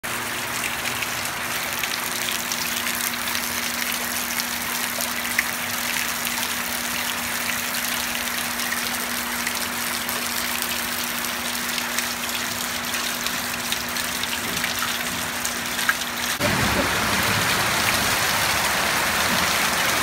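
Heavy rain and pouring water splashing steadily, with a faint steady hum underneath for most of it; about three-quarters of the way through it changes abruptly to a louder, fuller rush of water.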